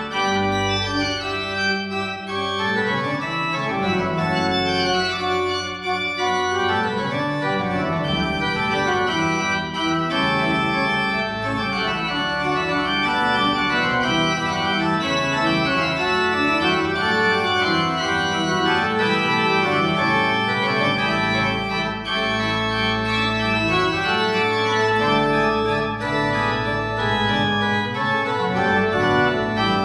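Church organ playing slow sustained chords over held low bass notes.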